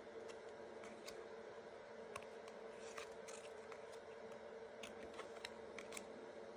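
Faint, light clicks and snaps of trading cards being handled and flipped through, over a steady background hum.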